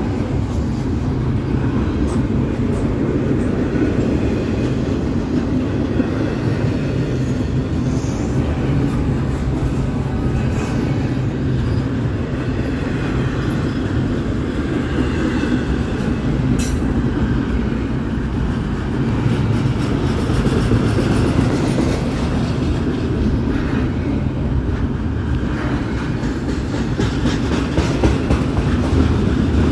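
Double-stack intermodal well cars of a Norfolk Southern freight train rolling past: a steady low rumble of steel wheels on rail, with clickety-clack and a few sharp clicks.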